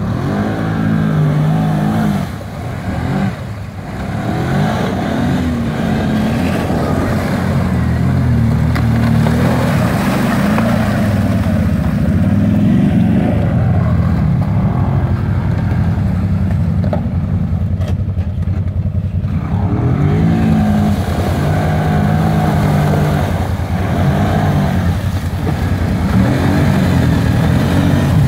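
Kawasaki ATV engine revving up and down again and again as the quad churns through slush and broken ice, its wheels spinning and throwing water and mud as it bogs down.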